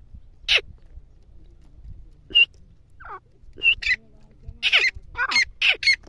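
Grey francolin (teetar) giving short, high calls: a few spaced out at first, then several in quick succession near the end.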